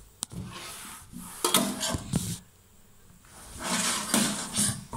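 Wiping and scrubbing a stainless steel kitchen sink with a cleaning cloth: a sharp click just after the start, then spells of rubbing with a short pause in the middle.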